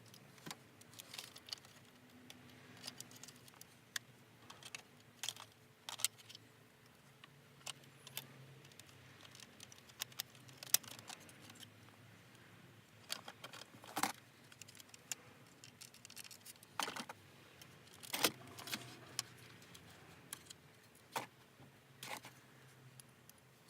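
Irregular clicks, taps and light rattles of small hard parts being handled during a car stereo install, with the louder knocks coming every few seconds.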